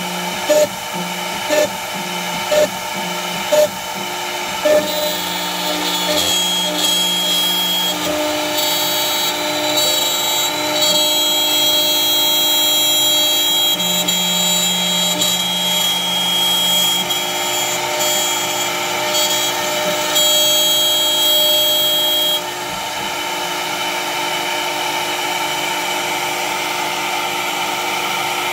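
CNC router spindle cutting into a pine board: about once a second for the first five seconds a bit plunges sharply into the wood, then it settles into a continuous milling pass over the steady whine of the spindle. The cutting gets quieter about 22 seconds in.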